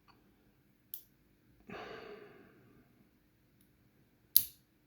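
A faint click, then a breathy exhale about two seconds in, and a sharp click near the end: small lock-cylinder parts clicking as a pinning shoe and pins are handled.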